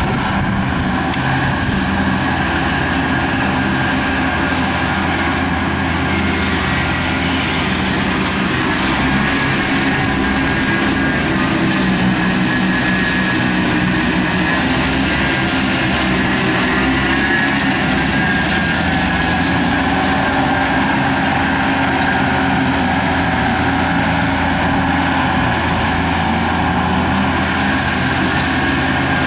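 Skid steer loader's engine running steadily under load, driving a Bobcat 90-inch hydraulic finish mower attachment with its blades spinning.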